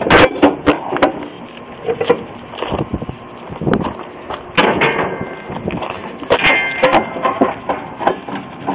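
Irregular metallic clanks and knocks from handling the sheet-metal cabinet and panels of an old Goettl heat pump.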